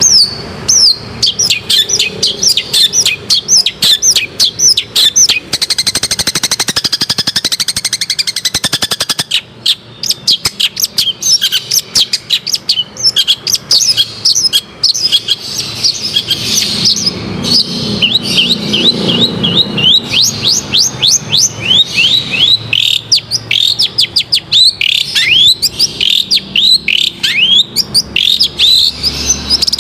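Long-tailed shrike (cendet) singing non-stop: a fast string of sharp high chirps and falling whistled notes, with a rapid buzzy rattle from about six to nine seconds in.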